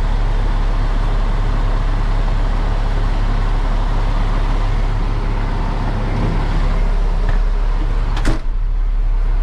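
Peterbilt 337 tow truck's diesel engine idling steadily, heard from inside the cab. A single sharp knock about eight seconds in.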